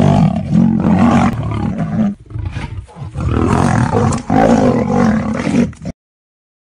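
Big cat roaring in two long bouts, with a short break about two seconds in, cutting off suddenly near the end.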